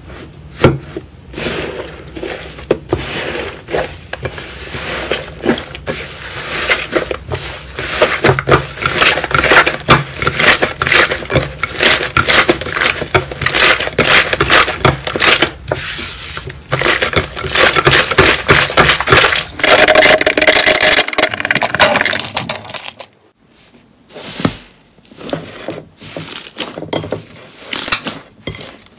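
Slime being squeezed and poked by hand, with dense crackling and popping clicks. It goes briefly quiet about three-quarters of the way through, then picks up again with scattered pops.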